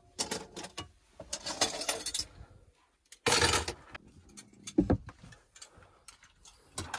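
Metal cutlery and dishes clinking and clattering in a small sink during washing up. This is followed by an overhead cabinet door being handled, with a low thud about five seconds in.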